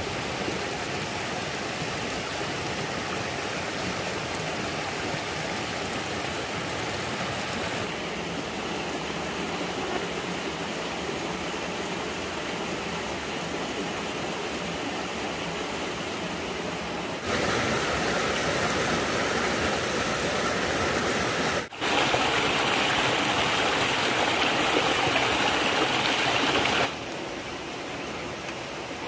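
Steady rush of running water, a noisy hiss without any tone. It steps abruptly louder and brighter about two-thirds of the way in, drops out for an instant, then falls back near the end.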